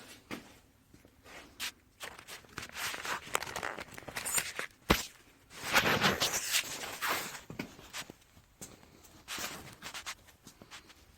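Scattered clicks, knocks and rustling of things being handled and moved about, with one sharp click about five seconds in and a louder stretch of shuffling noise just after.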